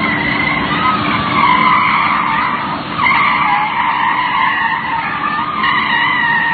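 Off-road vehicle's engine revving high with its wheels spinning in mud, the pitch wavering up and down throughout.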